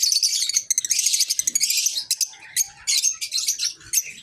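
A flock of caged lovebirds (masked, Fischer's and albino) chattering in rapid, overlapping, shrill high-pitched chirps, thinning briefly about two seconds in.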